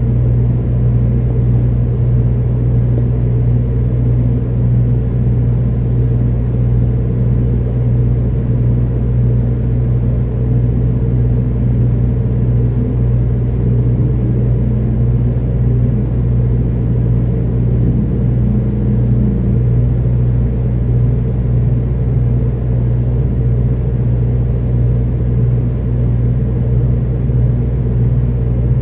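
Steady low-pitched machine hum, a deep drone with fainter higher tones that does not change, which the resident takes for machinery running in a neighbouring apartment.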